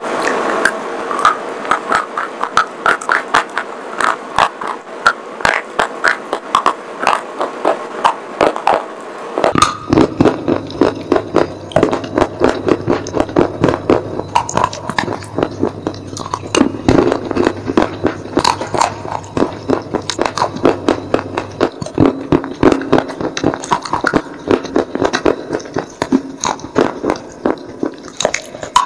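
Crunchy bites into edible clay, in quick succession: first a hard white chalky bar, then, after a cut about a third of the way in, baked clay cups, each bite a sharp crunch. A faint low hum sits under part of the second clip.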